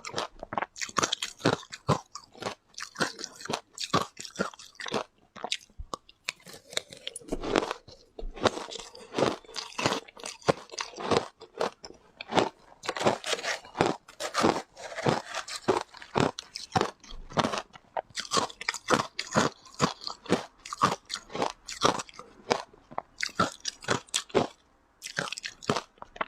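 Close-miked crunching and chewing of ice, a rapid irregular run of crisp crunches several times a second.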